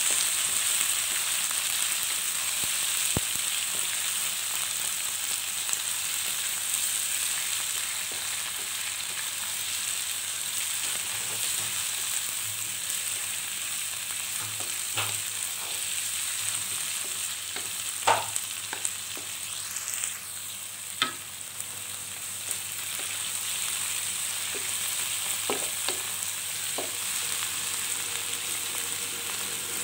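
Shrimp frying in hot oil with onion and garlic in a wok, a steady sizzle, with a wooden spatula stirring through them and knocking sharply against the pan a few times in the second half.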